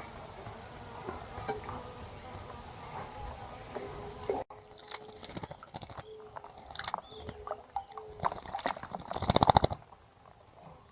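Small wild birds at a bird bath: scattered chirps and water splashes, with a loud, rapid flurry of splashing and wingbeats near the end as a bird bathes.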